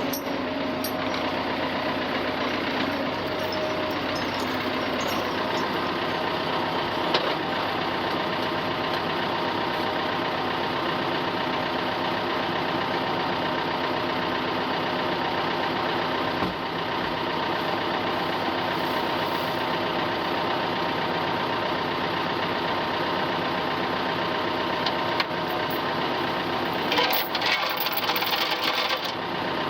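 Ford farm tractor engine running steadily while pulling a dead skid steer by chain. A spell of rattling and clanking comes near the end.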